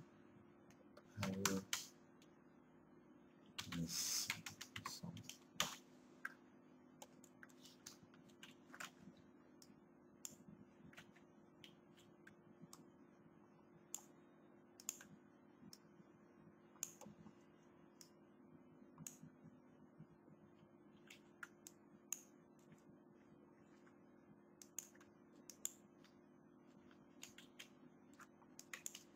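Faint, irregular clicking of a computer keyboard and mouse, with a steady low hum underneath. Two short, louder noises come in the first five seconds.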